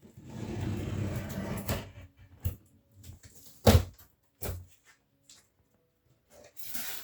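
Shipping packaging being handled: about two seconds of scraping and rustling, then three separate knocks, the loudest a little past halfway.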